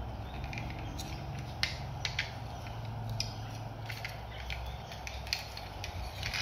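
Hard plastic parts of a transforming helicopter-robot toy clicking and snapping as they are folded and turned by hand: a scattered series of small clicks over a low steady hum.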